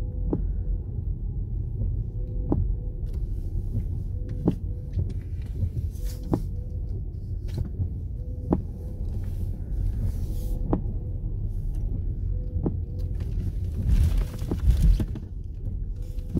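Car windshield wipers sweeping in the rain, a sharp click about every two seconds, over the low, steady rumble inside the car's cabin.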